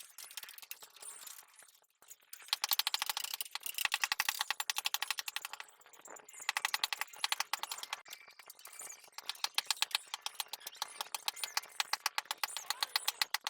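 Jackhammer hammering at rock: long runs of rapid, evenly spaced blows, with short pauses about two seconds in and again near six seconds.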